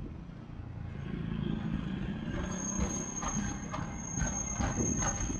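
Hankai Tramway streetcar No. 607 running past close by: a low rumble of wheels and running gear that builds as it nears, a thin high steady wheel squeal from about halfway through, and a string of clacks as the wheels pass over rail joints.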